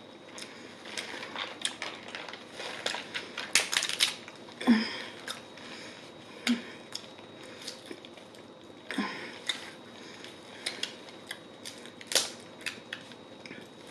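Crab leg shells being cracked and pulled apart by hand: a string of irregular sharp cracks and snaps, the loudest about four seconds in and again near the end, with eating sounds in between.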